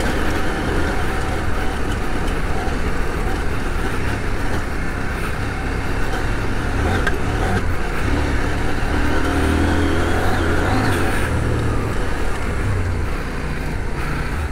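CF Moto 800MT's parallel-twin engine running at a steady trail pace, its pitch rising and falling a little with the throttle, under a constant rush of wind and tyre noise on the dirt.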